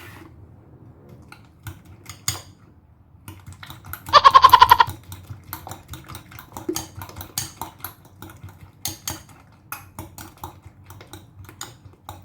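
Small utensil clicks and taps against a bowl while seasoned eggs are mixed, and about four seconds in a loud, wavering animal bleat lasting under a second.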